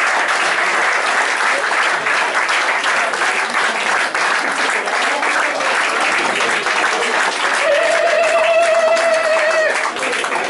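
Crowd of guests applauding steadily. Near the end a single held note sounds over the clapping for about two seconds.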